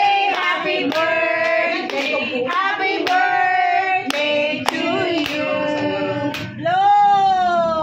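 A group of people singing together, with hands clapping along in time about twice a second. Near the end the singers hold one long, slowly falling note.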